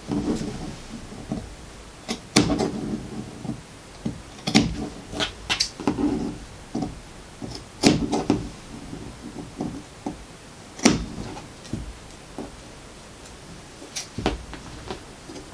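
Scissors snipping small notches into the curved seam allowance of a cotton pocket, to ease the curve. There is a sharp snip every second or two, the loudest about 2.5, 8 and 11 seconds in, with the fabric rustling as it is handled between cuts.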